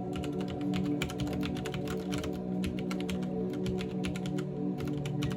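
Typing on a CM Storm QuickFire mechanical keyboard with Cherry MX Brown switches: a quick, uneven run of key clicks, with background music playing.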